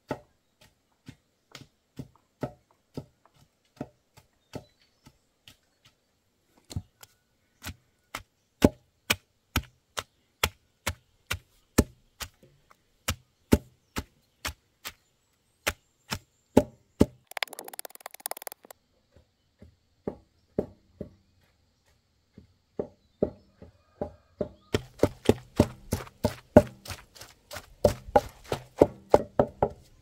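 A knife chopping on a cutting board in a steady run of sharp strokes that quicken toward the end, with a brief scraping rustle a little past halfway.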